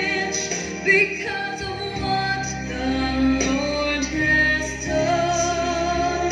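A woman singing a prayer song with instrumental accompaniment, held notes with vibrato.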